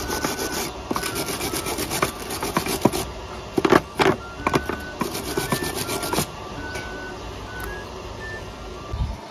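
Gasless flux-core MIG welding arc crackling and spitting as it welds steel rebar to a flat bar, with a few sharper cracks near the middle; it stops about six seconds in. Faint background music plays under it.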